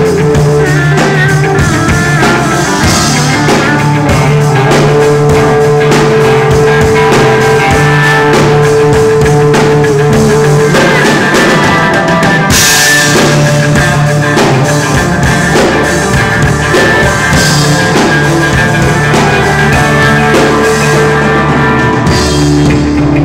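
Live rock band playing loud: a drum kit and electric guitar over held low notes, with a cymbal crash about halfway through. Picked up by a phone's microphone close to the stage.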